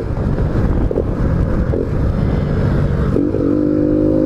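Honda Biz 125 single-cylinder four-stroke engine with a sports air filter, heard while riding. Its note drops away under wind and road rumble, then about three seconds in it comes back as a steady tone, rising slightly as it pulls again.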